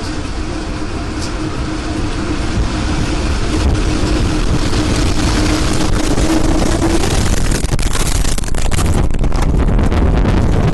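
Roar of a tornado's wind: a loud, continuous low rumble that grows louder, with a steady hum through the first seven seconds. Crackling buffeting of the wind on the microphone comes in over the last few seconds.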